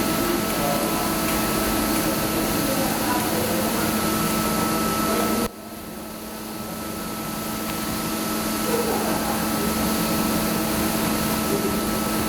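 Industrial vacuum cleaner (PowerJet Planet 50, 4 hp two-phase) running and sucking up copper slag: a steady rush of air with a hum and a whine. About five seconds in, the rushing noise drops suddenly, then builds back up over a few seconds while the motor hum carries on.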